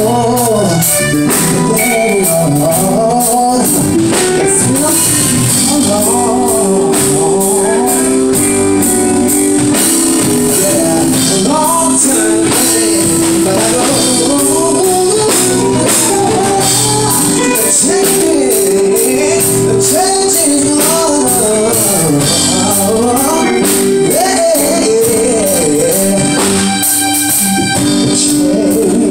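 Live band playing: a lead singer's melody over drum kit and held instrument notes, with a steady, fast hi-hat or tambourine pulse. Loud throughout.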